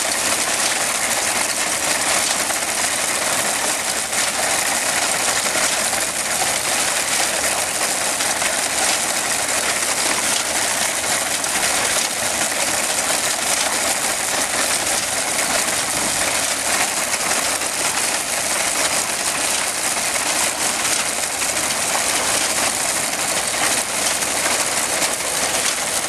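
Vintage tractor running steadily while pulling a reaper-binder through a standing grain crop, with the continuous clatter of the binder's cutter bar and mechanism.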